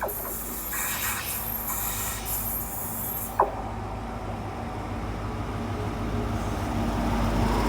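Class 43 diesel power car of a GWR HST set approaching, its engine giving a steady low drone that grows gradually louder. A brief high chirp sounds about three and a half seconds in.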